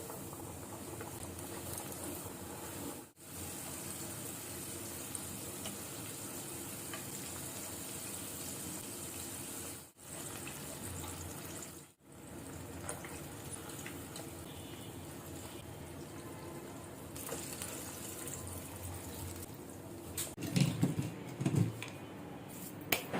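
Chicken pieces deep-frying in hot oil, a steady sizzle that breaks off briefly three times, with a few clatters of utensils near the end.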